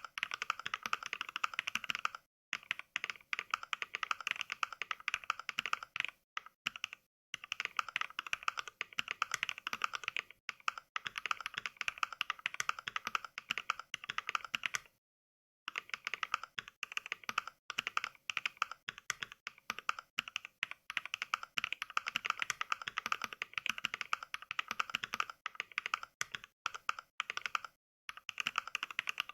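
Fast typing on a computer keyboard, each keystroke played back as a simulated NK Cream mechanical-switch click by the Mechvibes app rather than the keyboard's own sound. Rapid, even keystroke clicks with a few brief pauses, the longest about fifteen seconds in.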